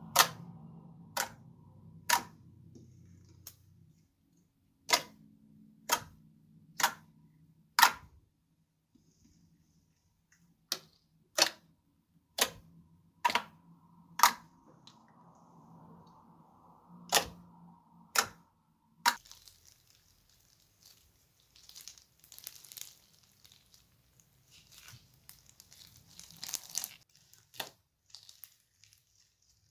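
Glossy slime squeezed and pressed by hand, giving sharp pops about once a second with a few pauses, as trapped air bursts out. About two-thirds of the way in it gives way to a busy crackling as a pink slime full of small beads is kneaded.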